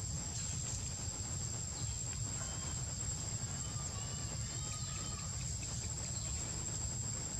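Steady high-pitched drone of insects over a low rumble, with a few faint chirping calls about midway.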